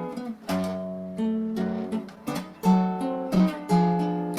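Acoustic guitar strumming chords in an instrumental passage between sung lines of a song, each chord struck sharply and left to ring.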